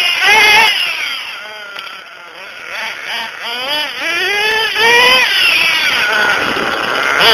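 RB S7 nitro engine in an Ofna LX RC buggy, revved up and let off again and again. It fades as the car runs away down the road, then grows louder as the car comes back.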